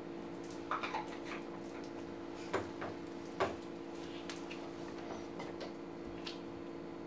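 Scattered light clicks and knocks of a tea cup and thermos being handled, the loudest two about two and a half and three and a half seconds in, over a steady low hum.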